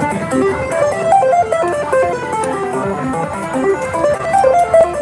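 Slot machine game music: a quick plucked-string melody of short notes stepping up and down.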